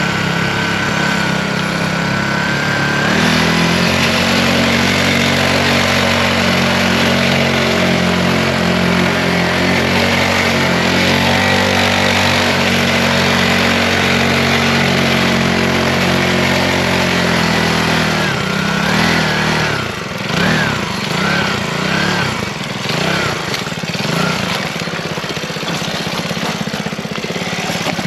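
Mini bike's small engine running under way. It throttles up about three seconds in and holds steady at speed, then drops back near the end with a few short revs as it slows.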